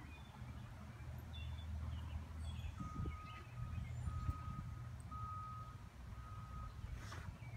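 A vehicle's reversing alarm beeping, about five beeps of one steady high tone roughly a second apart, starting a few seconds in, over a faint steady low rumble.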